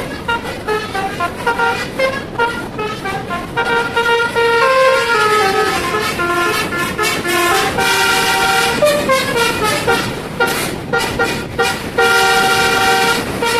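Telolet basuri musical air horn on a bus playing a tune: runs of short notes stepping up and down, a longer falling phrase in the middle, and a held chord near the end.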